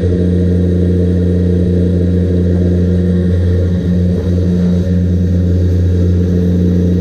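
A machine's motor running steadily at one speed: a loud, even hum.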